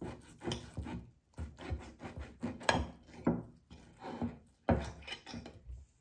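Knife sawing through a cooked steak on a cutting board: a run of irregular cutting strokes and scrapes, with a couple of sharper knocks of the blade on the board.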